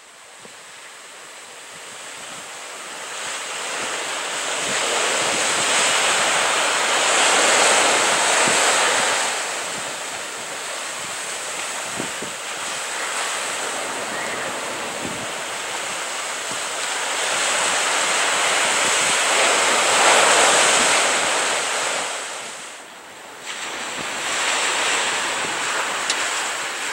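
Ocean surf breaking on rocks and washing up a sandy beach, a steady rush that swells and eases with the waves, loudest about a quarter of the way in and again about three-quarters in, with a brief lull near the end.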